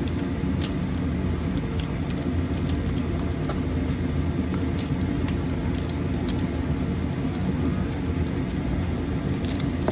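Steady low background rumble with a few light clicks and taps of items being handled.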